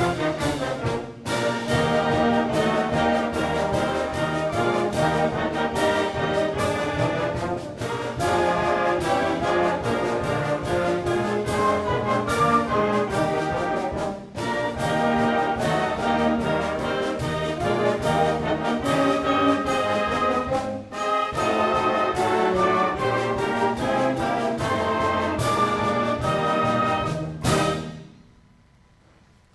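School concert band of woodwinds and brass playing a piece, with short breaks between phrases. The music stops abruptly near the end on the conductor's cut-off.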